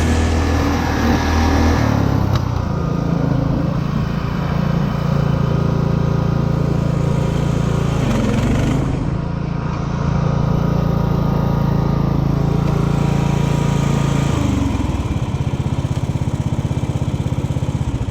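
Craftsman LT 1000 lawn tractor's 17 hp Briggs & Stratton engine running fast and steady, its pitch shifting a few times, then dropping to a slower, pulsing idle near the end.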